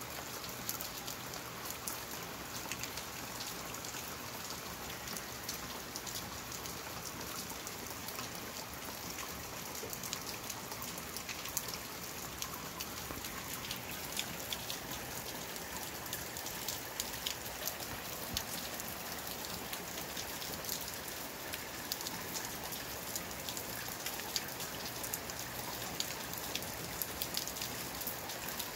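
Steady rain falling, with many sharp taps of drops landing close by, the taps coming more often from about ten seconds in.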